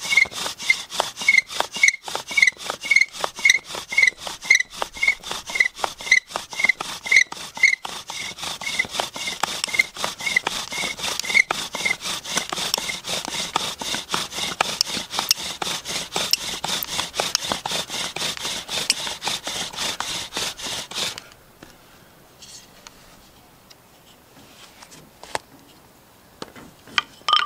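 Bow drill at work: a wooden spindle spinning back and forth in a notch of a wooden hearth board, grinding in a steady rhythm with a squeak on each bow stroke, as the friction builds hot char dust toward an ember. The squeaks fade out about halfway through, and the drilling stops suddenly a little after 20 seconds in.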